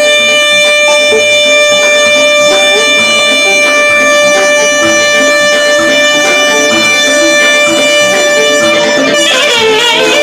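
Live Greek folk band music: a single note held steady for about nine seconds over a rhythmic accompaniment, then a violin melody with wavering notes takes over near the end.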